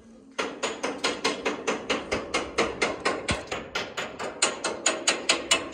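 A hammer beating on metal rapidly and steadily, about four blows a second, starting about half a second in.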